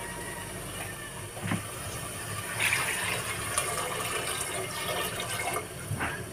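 Water poured from a metal bowl into an aluminium cooking pot, splashing and gurgling as the pot fills, at its fullest about halfway through. A few light knocks are heard as well.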